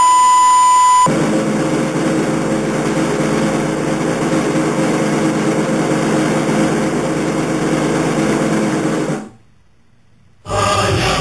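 A steady 1 kHz broadcast test tone with colour bars for about the first second. It cuts to a steady hiss with a low hum for about eight seconds, then near silence, and music starts about ten and a half seconds in.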